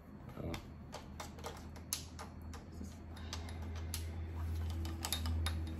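Irregular light clicks and taps of hands handling a metal light stand and its power cord and plug, over a low steady hum that gets louder near the end.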